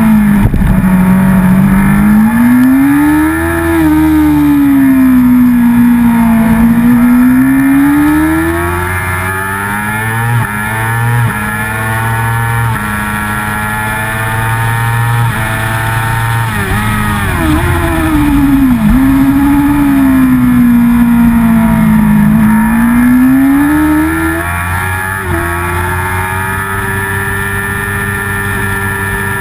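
Racing motorcycle engine heard on board at race pace, its pitch swinging up and down with the throttle through the corners. It climbs for several seconds as the bike pulls along a straight, dips sharply a couple of times after that, and holds a steadier pitch near the end.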